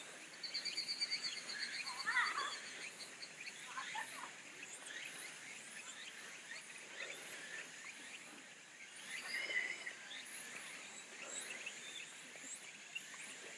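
Outdoor garden ambience: small birds chirping and calling here and there, with a quick high trill near the start and a louder call about two seconds in, over a faint steady high drone of insects.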